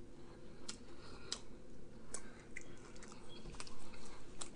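Faint, scattered wet mouth clicks and lip smacks from a person close to the microphone, at uneven spacing, over a low steady hum.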